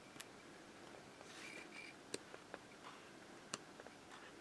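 Faint handling of sheets in a card-making paper pad as pages are turned: a few sharp little clicks, three of them more distinct, and a soft brief rustle about a second and a half in.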